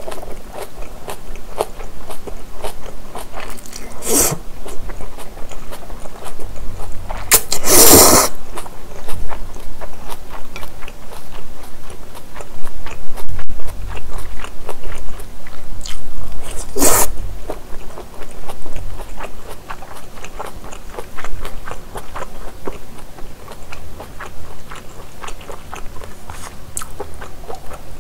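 Close-miked eating of japchae: moist chewing and small mouth clicks on glass noodles and vegetables, broken by three loud slurps of noodles, about 4, 8 and 17 seconds in, the middle one the longest.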